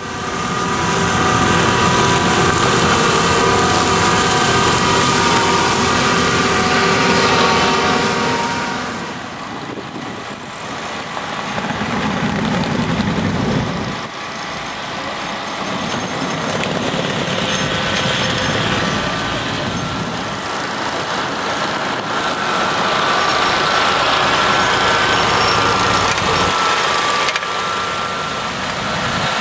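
Engines of weed-cutting boats running steadily at working load, with water churning and splashing around the hulls; the engine note changes about nine seconds in.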